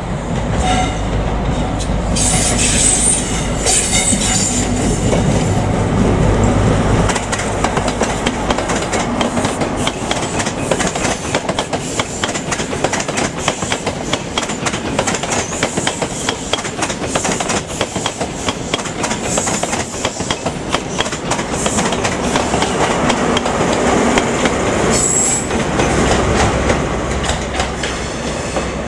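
CrossCountry High Speed Train passing: the Class 43 power car's diesel engine gives a deep rumble, then the coaches run by with a rapid, continuous clatter of wheels over the rail joints. Near the end there is a brief high wheel squeal, and the low diesel rumble of another Class 43 power car returns.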